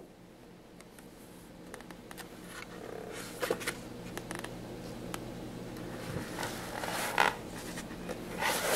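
Paper rustling and scraping as a hand slides over and handles the pages of a large hardcover picture book, in short scattered scrapes with a louder rustle near the end.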